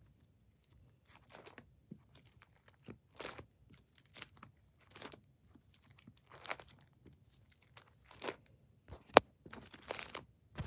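Plastic sleeve pages of a trading-card binder being turned one after another: short crinkling rustles about once a second, with one sharp snap near the end.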